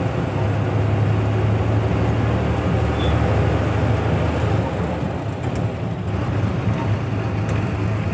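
Bus engine running steadily under way, with road and tyre noise, heard from inside the cabin.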